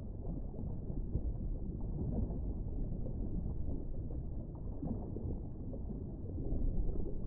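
Muffled underwater rumble heard through a camera's waterproof housing: a steady, low wash of water noise with nothing high-pitched in it.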